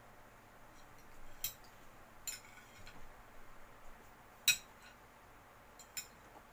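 Metal fork clinking and scraping against a plate while twirling and lifting spaghetti: a few sharp clinks, the loudest about four and a half seconds in.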